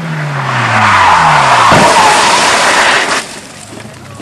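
Rally car on tarmac slowing into a bend: the engine note falls as it comes off the throttle, and the tyres squeal and skid loudly for about two seconds before the sound drops away near the end.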